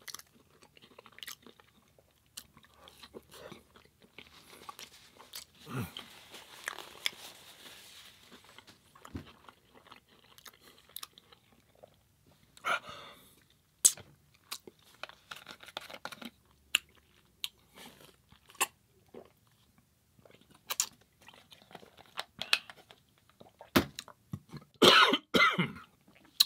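Close-miked chewing and crunching of a Beyond burger with enoki mushrooms and air-fried crinkle-cut fries, wet mouth smacks and clicks coming in quick irregular succession. A louder burst of sound comes near the end.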